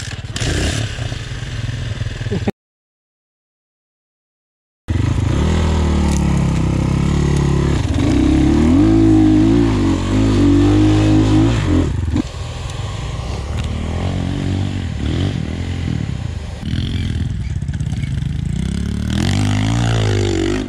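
250cc enduro dirt-bike engine revving hard under load, climbing a steep sandy slope, its pitch rising and falling with the throttle and loudest about halfway through. Near the start a steady lower engine sound is cut off by a couple of seconds of dead silence from an edit.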